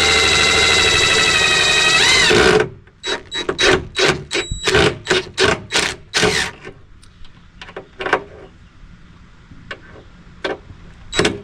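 Cordless drill driving a screw, its motor running steadily and dipping in pitch as the screw seats, then cutting off; a run of sharp clicks about three a second follows, thinning to scattered knocks near the end.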